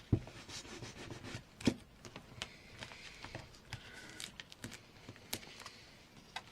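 Paper and card being handled and pressed down on a tabletop as a peeled-off paper pocket is glued back in place: light rustling and scattered taps, with two sharper thumps, one at the very start and one at about a second and a half.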